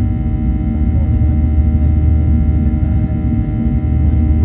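Inside the cabin of a Boeing 737-800 over the wing during climb-out after takeoff: the CFM56-7B turbofans running at climb thrust, a steady deep rumble with several steady whining tones above it.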